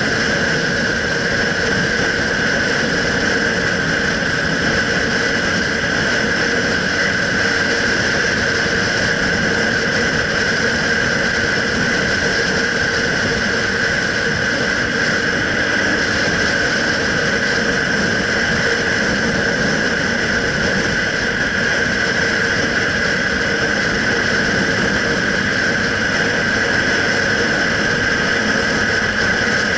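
Motorcycle cruising at a steady speed: the engine runs evenly and wind rushes past the handlebar-mounted camera, with a steady high whine over it.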